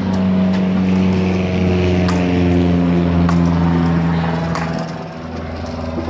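Paddles knocking a tethered speedball back and forth: a few sharp knocks about a second apart, over a loud, steady low drone that eases off near the end.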